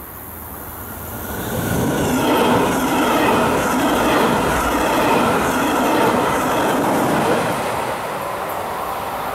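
Red double-deck regional train, hauled by an electric locomotive, passing close at speed: the rumble and wheel-on-rail noise build up over about the first two seconds, hold loud while the coaches go by, then ease off near the end as the train moves away.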